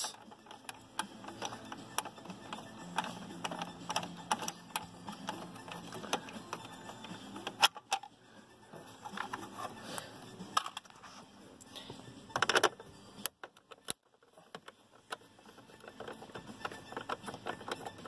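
Light, irregular clicks and small knocks of hand tools working out the small bolts around a pickup's dashboard instrument cluster. About twelve and a half seconds in there is a brief pitched sound.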